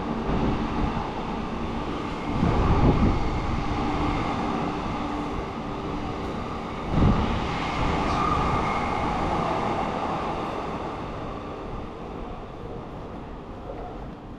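A train passing, with a steady hum of tones at first, louder surges about three and seven seconds in, then slowly fading away.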